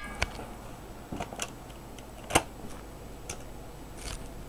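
A handful of separate light clicks and ticks, about six over four seconds with the sharpest a little past the middle, over a low steady room hum.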